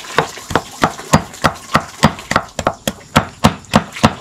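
Knife chopping food in an even, steady rhythm of about three strikes a second.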